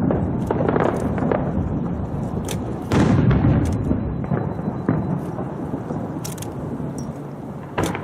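Fireworks going off: a continuous low rumble of booms, with a sharper, louder bang about three seconds in and scattered small crackles.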